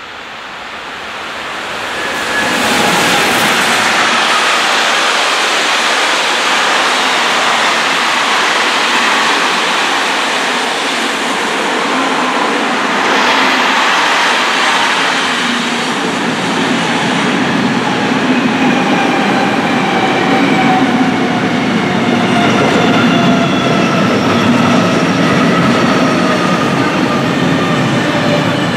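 Electric-hauled intermodal freight train passing close by: the locomotive arrives about 2 to 3 seconds in, and a long run of loaded container wagons follows, rolling by loudly with a steady rumble and clatter of wheels on the rails. In the second half faint whining tones slowly fall in pitch.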